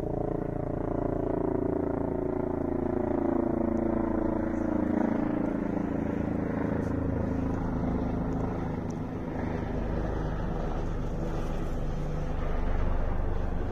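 Helicopter flying overhead: a steady drone of engine and rotor whose pitch slowly falls over the first half of the pass, then gives way to a broader, rougher rumble.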